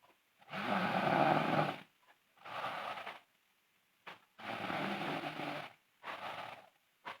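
A sleeping girl snoring loudly, about two breaths. Each breath is a long, loud snore followed by a shorter, quieter one, with silent pauses between.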